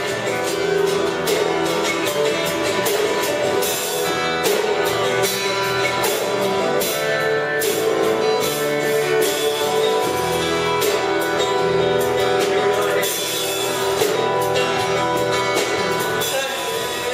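Live band music led by guitars, strummed in a steady rhythm.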